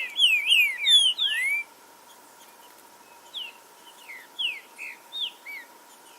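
Green-winged saltator (trinca-ferro) singing: a loud rapid phrase of clear, down-slurred whistled notes at the start, then fainter single whistled notes spaced through the rest, with fainter high chirps above.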